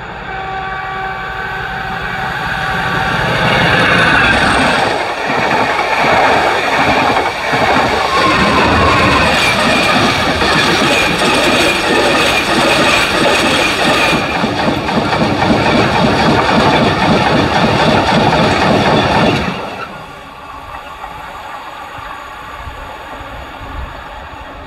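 A Network Rail yellow engineering train of hopper wagons passing close by at speed. Its approach grows louder over the first few seconds, then the wheels and wagons clatter and rush past loudly for about fifteen seconds. The sound drops off sharply near the end as the last wagon goes by.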